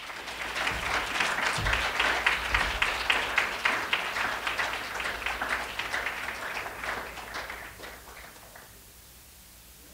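Audience applauding: dense hand-clapping that builds quickly, then thins and dies away about eight and a half seconds in.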